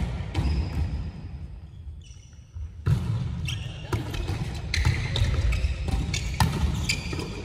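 Volleyball rally on an indoor hardwood court: a string of sharp hits of hands on the ball, echoing in the large hall. The hits thin out in a brief lull about two seconds in and come thick again from about three seconds.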